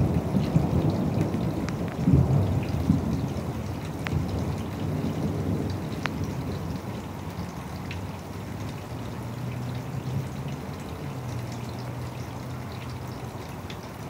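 Thunder rumbling, loudest at the start and slowly dying away, over steady rainfall with scattered drips.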